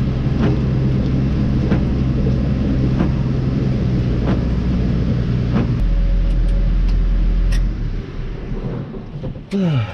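Tractor engine running, heard from inside the cab, with a faint click about every second and a quarter. The engine is shut off about eight seconds in.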